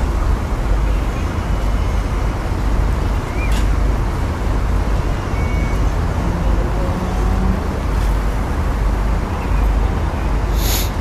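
Steady low rumble and noise of the ferry's engines and machinery as the ship lies at the quay, with a short hiss near the end.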